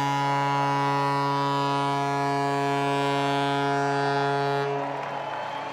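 Ballpark home-run horn sounding one long, steady low blast of several notes together, signalling a home run. It fades out about five seconds in.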